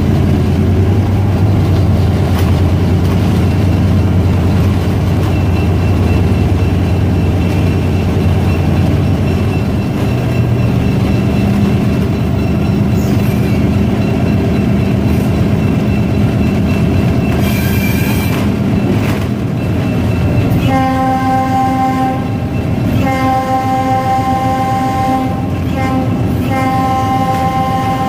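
Diesel locomotive engine running, heard from inside the cab as the train rolls along. About three-quarters of the way in, the locomotive's air horn starts sounding in three long blasts with short breaks between them, the last still going at the end.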